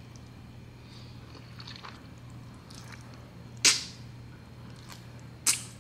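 A person slurping saucy instant noodles from chopsticks: two loud, hissy slurps, the second about two seconds after the first, with fainter mouth sounds between.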